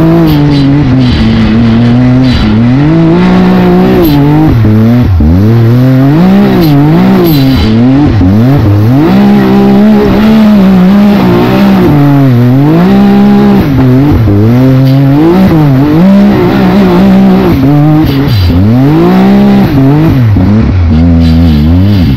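Can-Am Maverick X3 side-by-side's turbocharged three-cylinder engine revving hard. Its pitch rises and falls every second or two as the throttle is worked over rough dirt climbs and drops, heard loud from on board the car.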